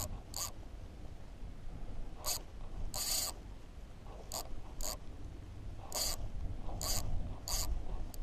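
Fishing reel's drag giving line in about nine short, irregular buzzing bursts while a hooked fish pulls hard against the bent rod.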